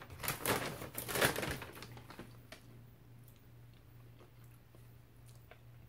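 Plastic takeout bag rustling and crinkling as it is picked up, in the first second and a half or so, then a low steady hum with a few faint clicks.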